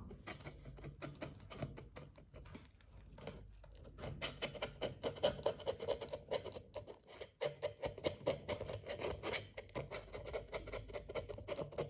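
Pet rat licking leftover yogurt from inside a plastic yogurt cup: a rapid, irregular run of small wet clicks and taps of tongue and teeth on the plastic.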